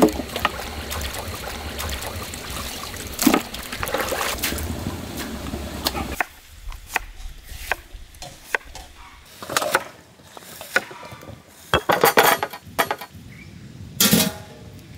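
Hands sloshing whole chickens in a steel bowl of water. About six seconds in this gives way to a knife chopping onion, a run of sharp separate chops that come faster near the end.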